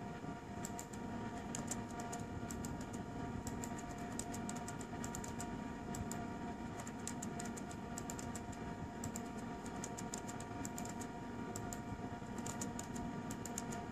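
Laptop keyboard typing: quick runs of keystrokes with short pauses between them, over a steady faint hum.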